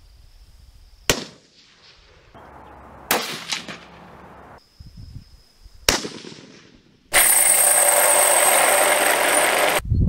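Three rifle shots, each a sharp crack, a couple of seconds apart, followed near the end by a loud steady noise lasting nearly three seconds.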